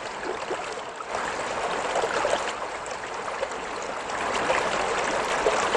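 River water flowing over a shallow stony riffle: a steady babble with small trickles and splashes.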